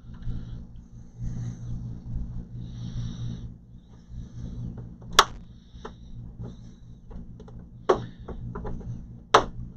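Plastic pry tool working around the plastic back cover of an HP all-in-one desktop, with scattered small clicks and three sharp snaps, the loudest about five, eight and nine and a half seconds in, as the cover's plastic clips pop loose. A steady low hum runs underneath.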